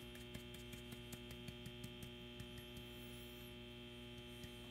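Steady electrical mains hum, with faint quick taps of a brush stippling texture onto a decoy body, about four a second, stopping about halfway through.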